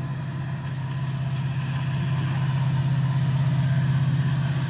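Diesel locomotive engine rumbling as the train approaches: a steady low throb that slowly grows louder.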